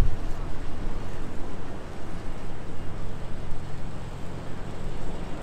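Steady low rumble of city street traffic, with no distinct events standing out.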